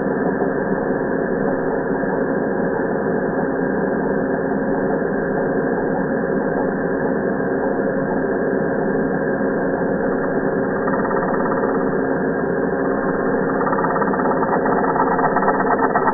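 Electric angle grinder running, its sound slowed down with the slow-motion footage into a deep, steady drone with a thick, buzzy texture that grows a little rougher and louder in the second half.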